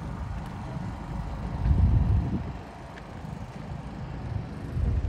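Wind buffeting the phone's microphone, a low rumble that swells in a strong gust about two seconds in and again near the end.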